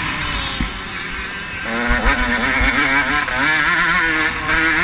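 KTM 105 XC two-stroke motocross bike engine heard from onboard: lower and subdued for the first second and a half or so, then back on the throttle and revving up and down as it is ridden hard.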